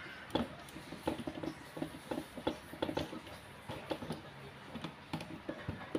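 Hand screwdriver driving screws into the plastic frame of a Brother HL-2130 laser printer's fuser unit, fastening the fuser bar: a run of small irregular clicks and scrapes.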